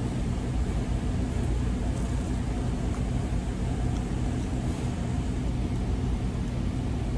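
Steady low rumble and hum of restaurant background noise, with a few faint clicks.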